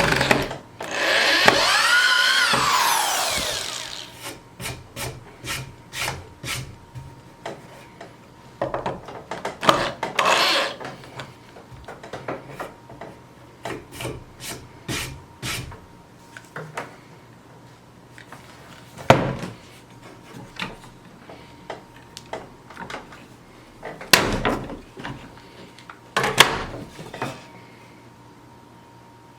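Power drill boring into wood, its motor pitch rising and then falling over about three seconds near the start. It is followed by scattered clicks and knocks and a few shorter bursts of drilling or rubbing on wood.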